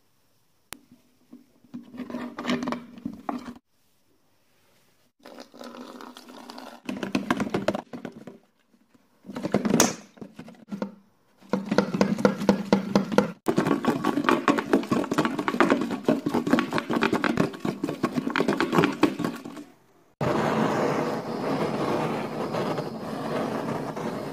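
Brass cap rattling and sloshing in nitro solvent inside a cut-down plastic bottle, in several short bursts, as the etch-resist paint is washed off. From about 20 seconds in comes the steady hiss of a gas torch warming the brass cap.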